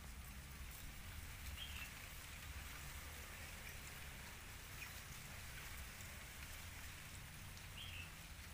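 Baby monkeys eating soft, wet food from a plastic bowl: faint crackly smacking and slurping, with two brief high chirps about six seconds apart.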